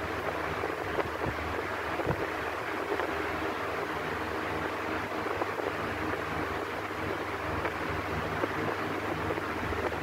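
Electric fan running steadily: an even rush of moving air with a faint low motor hum underneath, and a couple of faint ticks in the first two seconds.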